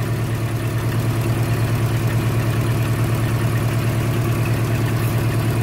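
Old Nissan pickup's engine idling steadily at operating temperature, with an even, fast pulse.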